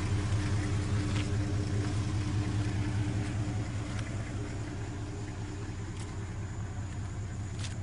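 Toyota Coaster minibus engine running: a steady low rumble with a held mid-pitched tone above it, slowly getting quieter toward the end.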